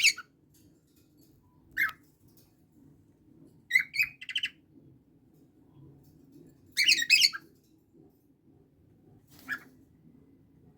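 Pet parrots, an Indian ringneck and cockatiels, calling in five short, high-pitched bursts of squawks and chirps a second or two apart; the burst a little before the middle is the longest and loudest.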